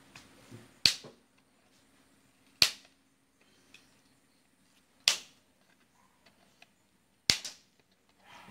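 Wooden ice-cream sticks being snipped through with a hand cutter: four sharp cracks about two seconds apart as each stick end snaps off.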